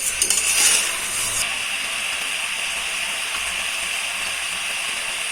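Country chicken pieces sizzling in hot oil in a pan while being sautéed, with a few clicks of the spoon stirring in the first second and a half, then a steady sizzle.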